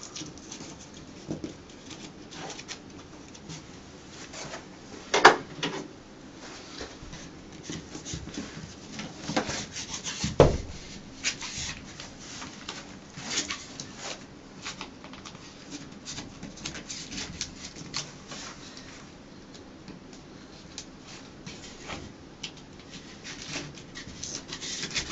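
Vinyl wall wrap being pressed and trimmed by hand along the base of the wall: irregular rubbing and scraping with scattered small clicks, a sharp knock about five seconds in and a dull thump about ten seconds in.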